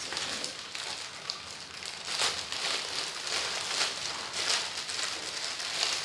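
Packaging being handled and unwrapped close to the microphone: an irregular rustling and crackling, with louder crinkly flare-ups about two, four and six seconds in.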